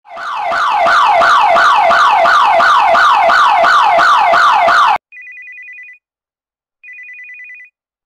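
Burglar alarm siren sounding in fast repeating downward sweeps, about three a second, cutting off suddenly about five seconds in. A mobile phone then rings with two short trilling bursts: the alarm system calling the owner to report the break-in.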